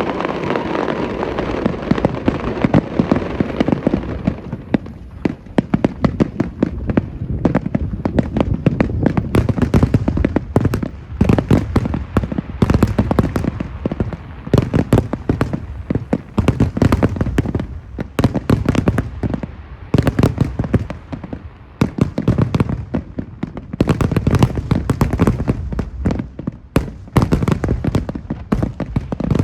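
Fireworks going off in a dense, continuous barrage: rapid bangs and crackling, many reports a second.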